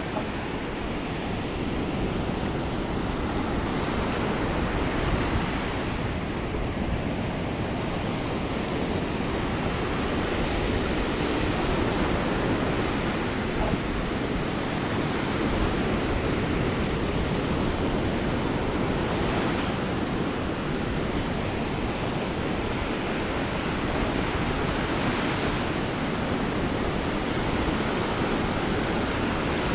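Ocean surf washing up onto a sandy beach, a steady rush of noise, with wind on the microphone.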